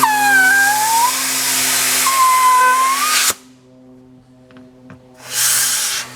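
Compressed air hissing through a tire chuck into an inner tube, with a whistling tone that dips and rises; the air stops about three seconds in and another short burst comes near the end. A steady low hum runs underneath.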